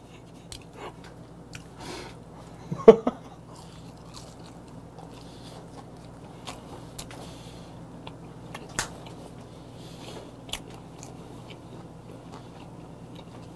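A man biting and chewing a whole air-fried capelin (shishamo) close to the microphone: soft wet mouth clicks, with one louder bite about three seconds in.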